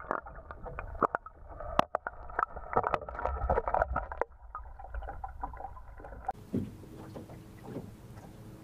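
Muffled underwater water noise: sloshing and bubbling with many sharp clicks over a low rumble. About six seconds in it changes to a faint steady hiss of open air with a faint low hum.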